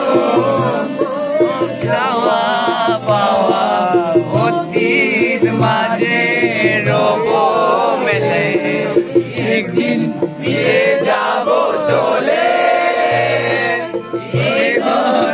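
Young men singing a song, with a regular low beat underneath.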